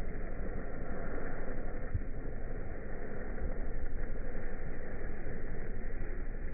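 Ground fountain firework spraying sparks: a steady low rushing noise.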